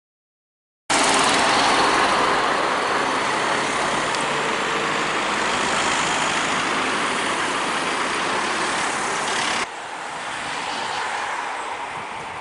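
Road traffic: cars passing close by on the street, a steady rush of tyre and engine noise that starts suddenly about a second in. Near the end it drops abruptly to a quieter street background.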